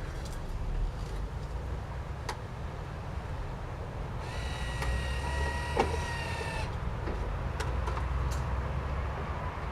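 Small 1 HP electric garden tractor ploughing, with a low rumble throughout. About four seconds in its electric motor rises into a high whine for two or three seconds, and scattered clicks and knocks from the plough and frame come through, the sharpest near the middle.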